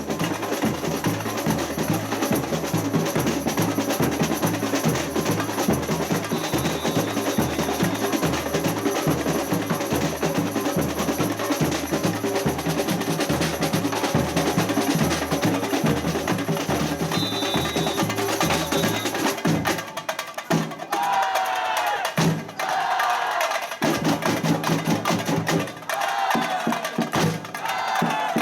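Samba percussion ensemble playing a fast, steady rhythm driven by deep bass drums, with sharp higher strikes on top and two short high whistle tones. About two thirds of the way through the bass drums stop, and voices call out over lighter percussion.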